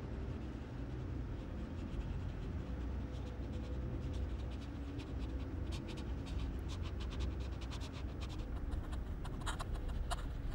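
Horror film sound design: a low rumbling drone with scattered crackling clicks that start about three seconds in and grow thicker toward the end.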